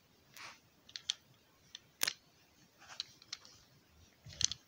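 Handling noise from a small wooden toy train car turned over in the fingers close to the microphone: scattered sharp clicks and brief rubbing sounds, the loudest click about two seconds in and a small flurry near the end.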